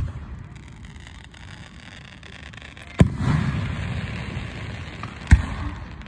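Aerial firework shells bursting overhead: three sharp booms, one right at the start, one about three seconds in and one a little after five seconds, each trailing off into a rolling rumble of echo.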